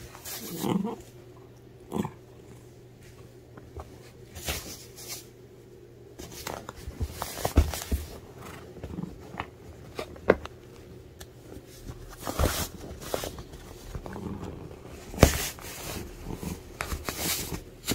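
A cat's paws and claws catching and tugging at a quilted bed cover while its body shifts on a wooden floor: irregular fabric rustles and soft knocks, several sharper ones later on. A short low vocal sound about a second in.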